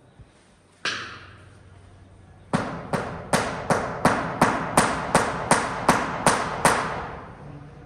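Mallet tapping on a large-format floor tile to bed it: a single strike, then a run of twelve evenly spaced strikes, about three a second.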